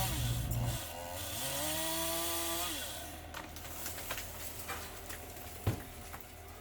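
Power saw running as it cuts through a tree limb: the motor pitch shifts and rises, then the saw dies away about three seconds in. A single sharp knock follows near the end.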